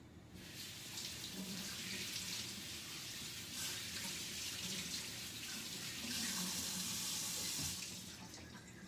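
Kitchen tap running as asparagus is rinsed under it: a steady hiss of water that starts about half a second in, grows louder shortly before the end, then stops.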